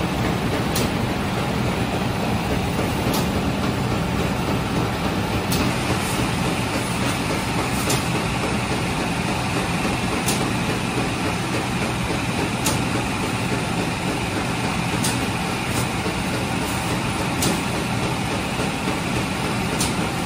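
Bakery machinery running with a steady hum, with a sharp click repeating about every two and a half seconds.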